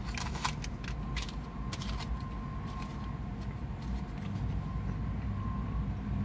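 Crinkling and sharp clicks from handling a paper burger wrapper, thick in the first two seconds and sparse after, over a steady low vehicle rumble.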